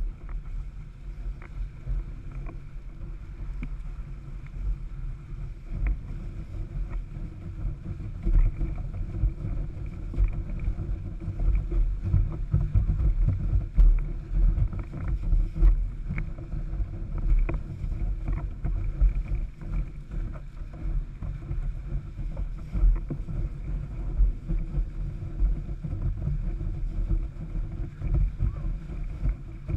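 Wind buffeting the microphone and water rushing under a windsurf board planing across choppy water, with irregular knocks and slaps of the board on the chop.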